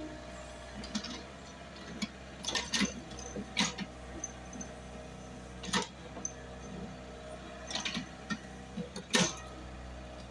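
Excavator engine running with a steady low drone, broken by sharp irregular clanks and knocks from the working machine.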